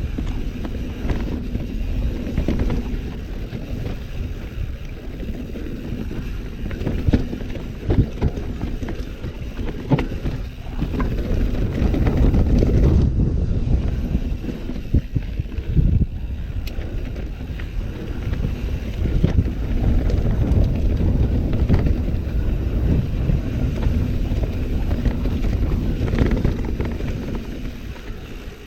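Mountain bike descending fast over rough ground: a steady rumble of tyres on dirt and wind buffeting the microphone, with many sharp knocks and rattles from the bike hitting roots and rocks.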